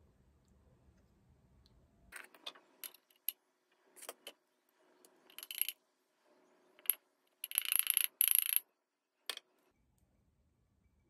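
Dry red pepper flakes poured from a large glass jar into a small glass spice jar, rattling in several short spurts with the loudest for about a second near the end, among sharp clinks of glass and lids.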